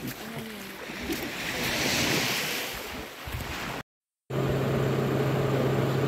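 Sea surf washing on the shore, one wave swelling up about two seconds in, with faint voices near the start. After a short gap from a cut, a steady low mechanical hum.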